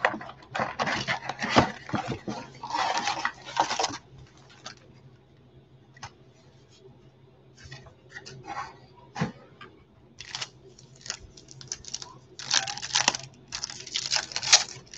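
Cardboard and wrapper rustling as a 2020 Topps Chrome baseball card box is opened and its packs handled, in bursts with sharp clicks. A quieter stretch with a few light taps follows, then more crinkling and tearing near the end as a pack is opened.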